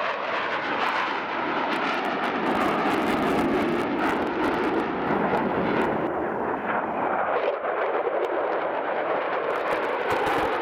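Mitsubishi F-2 fighter's single jet engine heard in flight: a loud, steady rushing jet noise with a crackling edge.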